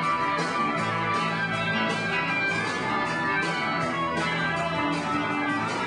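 Live band playing loud, guitar-led rock music with drums and cymbal hits.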